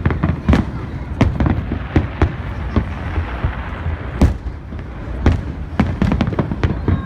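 Aerial fireworks going off in quick succession: a string of sharp bangs, about one or two a second, over a continuous low rumble, with a stretch of crackle midway.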